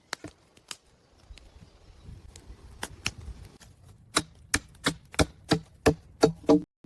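Tool striking wood: a few scattered knocks, then a steady run of sharp blows, about three a second, in the second half.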